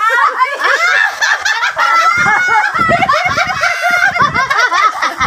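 Several people laughing and shrieking over one another, with high-pitched excited voices.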